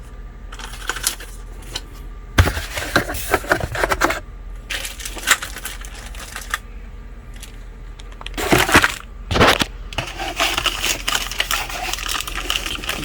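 Unboxing handling noises: bursts of rustling, light knocks and clicks from cardboard and plastic packaging being handled, in irregular clusters with short pauses, then steadier crinkling over the last few seconds.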